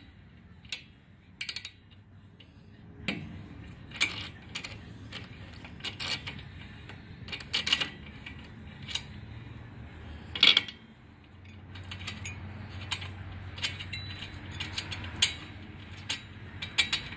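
Sharp metallic clicks and clinks of a spark-plug socket and extension being fitted and turned on the finned cylinder head of a Hirth two-stroke aircraft engine, loosening a spark plug. A low steady hum sets in about two-thirds of the way through.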